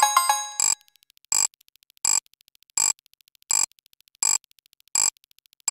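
Electronic sound effects: a short, bright beep repeating steadily about every 0.7 s, with a ringing chime of several tones at the start that dies away within about a second.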